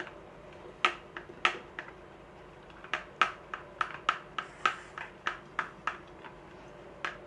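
A kitchen utensil clicking and tapping lightly against a container as syrup is added to the soy-sauce marinade. The taps come irregularly: a few in the first two seconds, then a quicker run in the middle.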